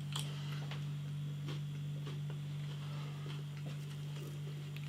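A steady low hum with a few faint, soft clicks scattered through it.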